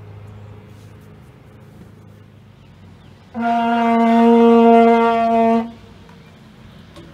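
A plastic vuvuzela-type horn blown in one long, steady note lasting a little over two seconds, starting about three seconds in.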